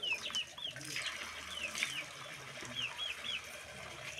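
Small birds chirping: short, high notes that bend down in pitch, in quick groups of two or three, repeating every second or so.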